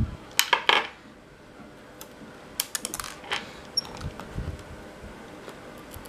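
Light clicks and taps of plastic and metal as a laptop's LCD panel is handled and pressed into its lid frame: a quick cluster of clicks about half a second in, scattered ticks around the middle, then a couple of soft thumps.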